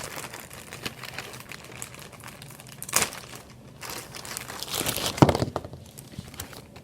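Hands working on a toy doll's plastic battery compartment and its corroded batteries: crinkly rustling with scattered sharp plastic clicks, the loudest about three seconds in and again past five seconds.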